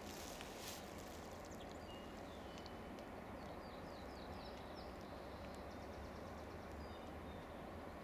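A songbird singing a quick run of short down-slurred notes around the middle, with a few other faint chirps, over a faint steady rushing background.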